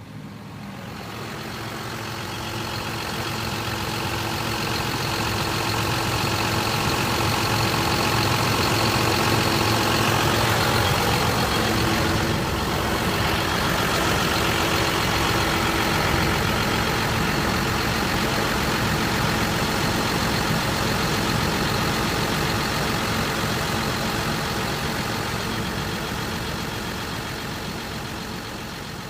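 Farm machine's engine running steadily, growing louder over the first few seconds and fading toward the end.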